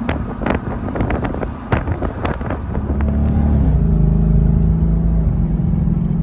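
Open-top car ride: uneven bursts of wind noise on the microphone for the first few seconds, then the 2016 Mustang GT's 5.0 L Coyote V8 through its custom Borla exhaust comes up as a louder, steady low drone. Its pitch drops a step about three and a half seconds in, then holds steady at cruise.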